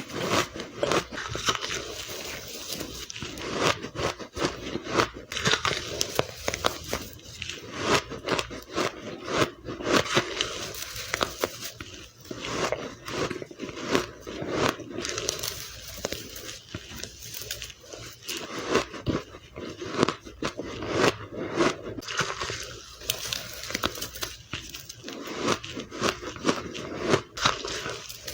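Ice being bitten and crunched between the teeth close to the microphone, with sharp, irregular crunches coming one after another.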